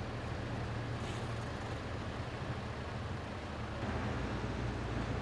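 Slow road traffic: car engines running at low speed with a steady low hum, a little louder about four seconds in.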